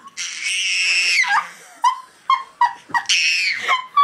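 Baby squealing: two long, high-pitched shrieks, each followed by short rhythmic high yelps about three a second.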